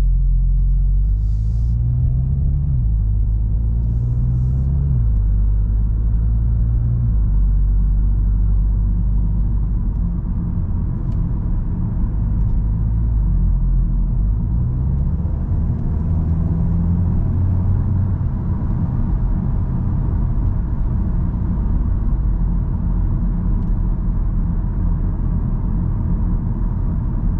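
Inside the cabin of a 2022 Volkswagen Golf GTI (MK8) with its stock exhaust, driving in normal mode: a steady low engine hum and road rumble. The engine note climbs and falls back twice in the first five seconds as the car accelerates through the gears, then runs steadier at cruising speed.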